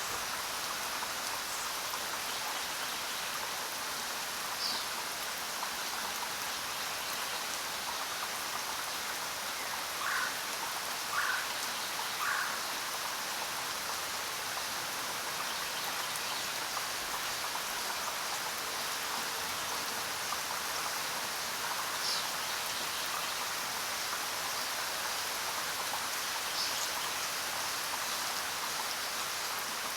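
Steady jungle rain hissing and pattering. Over it come a few brief animal calls: three short calls close together about a third of the way in, and a few higher single calls scattered through the rest.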